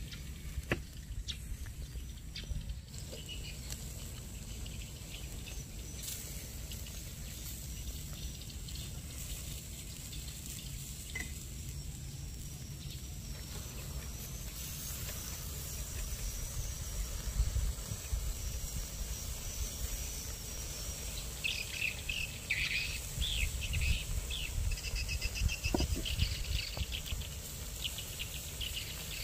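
Outdoor ambience: small birds chirping on and off, more often in the last several seconds, over a steady low rumble.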